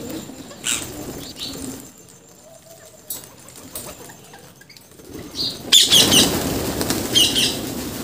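A flock of rose-ringed parakeets at a seed feeder, giving a few short shrill calls. Nearly six seconds in, the whole flock takes off at once in a loud rush of flapping wings, with screeching calls.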